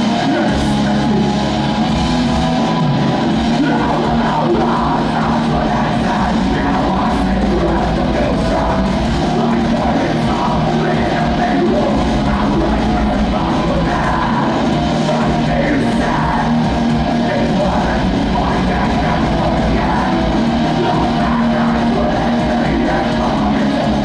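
Metallic hardcore band playing live at full volume: electric guitars, bass guitar and drums, with a shouted lead vocal through a PA.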